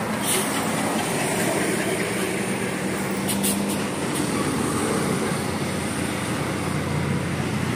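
A large bus passing close by: a steady diesel engine drone with tyre and road noise, without a horn.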